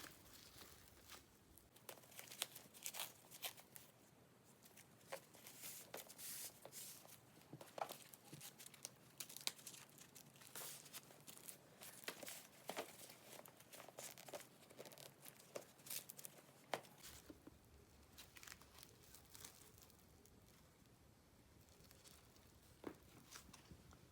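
Faint crinkling, rustling and light clicks of a handbag and its wrapping being handled, busiest through the first two-thirds and thinning out near the end.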